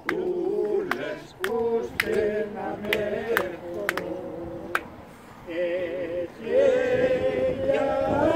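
A group of people singing unaccompanied, men's and women's voices together, with hand claps keeping time for the first few seconds; the singing grows louder near the end.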